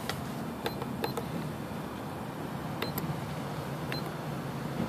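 Short electronic beeps from a vending machine's ordering keypad as an item number is keyed in, about half a dozen irregularly spaced presses over a steady low machine hum.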